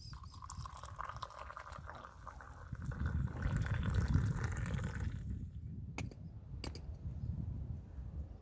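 Liquid pouring steadily for about five seconds, followed by two sharp clicks.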